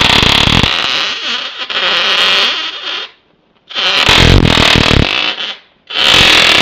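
A 1000 kV high-voltage inverter arcing into steel wool: a loud, harsh electric buzz and crackle. It cuts out about three seconds in and again briefly near five and a half seconds, starting up again each time.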